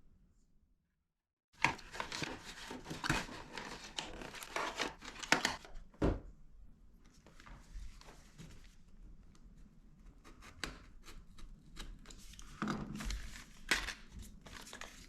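A product box being handled and opened: irregular rustling of cardboard and packing, with a sharp snap about six seconds in. It starts about a second and a half in.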